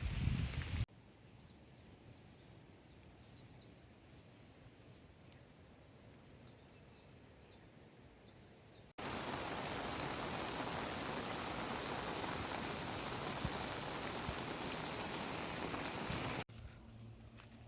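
Outdoor ambience in separate clips: small birds chirping in rapid short high calls over quiet background, then after a sudden cut a loud, steady rushing noise like heavy rain, which cuts off abruptly near the end.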